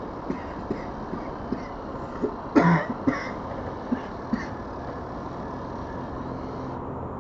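Steady background rumble like distant traffic, with a scatter of light taps and one short, louder cough-like burst about two and a half seconds in.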